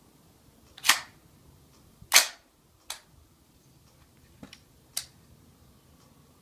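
Two loud, sharp cracks about a second and a quarter apart from the .50 caliber AR pistol, followed by a few lighter metallic clicks.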